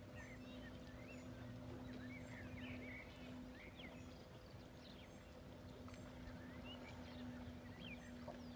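Many faint, short chirps and squeaks, some gliding up or down in pitch, come several times a second over a steady low hum. These are the strange sounds picked up from a calm sea.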